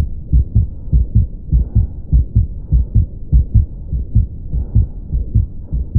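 Stethoscope recording of a heart with a ventricular septal defect: quick, repeating low lub-dub thumps, about four a second, with the murmur of the defect between them.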